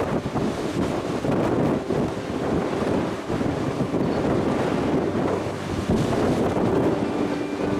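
Wind buffeting the microphone on the deck of an underway car ferry, over the rush of sea water along the hull, with a faint steady drone from the ship beneath it.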